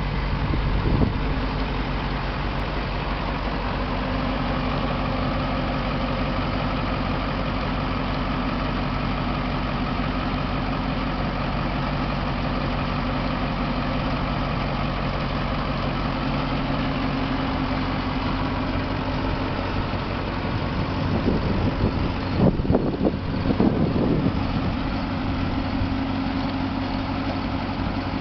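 Straight truck's engine idling steadily. A few louder, uneven surges come about three-quarters of the way through.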